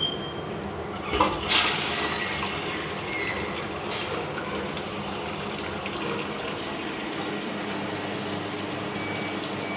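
Wall-hung toilet flushing: two sharp knocks about a second in, then a steady rush and hiss of water into the bowl.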